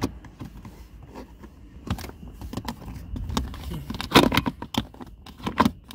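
Hard plastic clicking, knocking and rattling as a Mitsubishi Endeavor's front cup holder insert is pushed and worked into its slot in the centre console. A few sharp knocks stand out, the loudest about four seconds in.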